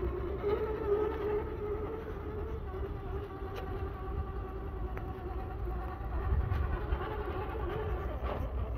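Electric drive of a 1/10-scale Traxxas TRX-4 Defender RC crawler whining steadily as it crawls over the dirt track, with a low rumble underneath.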